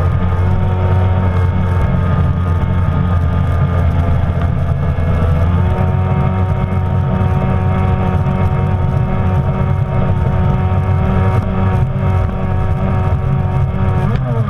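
Kawasaki stand-up Jet Ski's two-stroke engine running at speed, a steady, loud note that steps up slightly in pitch about five seconds in and wavers near the end, with the hiss of spray and wind.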